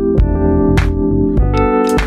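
Background music: keyboard chords over a steady beat, with a hit a little more than once every half second.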